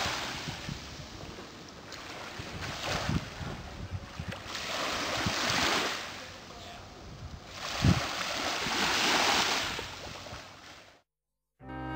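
Small waves washing up on a sandy beach, the surf swelling and ebbing every few seconds, with wind buffeting the microphone. Near the end it cuts to silence.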